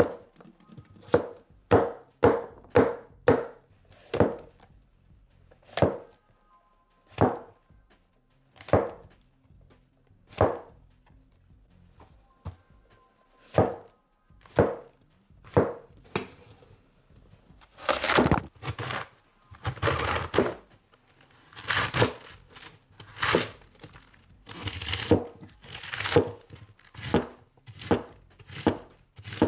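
A 270 mm carbon-steel gyuto chef's knife chops vegetables on a wooden cutting board, each cut ending in a sharp knock of the blade on the board. The cuts come quickly at first, then as single spaced strikes. In the second half they become longer, denser strokes as the knife shreds through cabbage.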